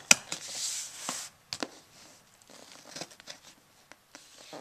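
Scissors cutting and scraping at packing tape on a cardboard shipping box: a sharp click at the start, about a second of scraping hiss, then a couple more clicks and a few light taps.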